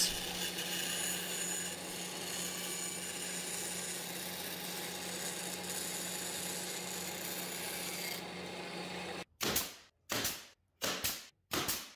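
Bandsaw running and cutting a curve in plywood: a steady hum under a rasping cut. About nine seconds in it gives way to a pneumatic brad nailer firing five times in quick succession, a little under two shots a second, each a sharp crack that fades quickly.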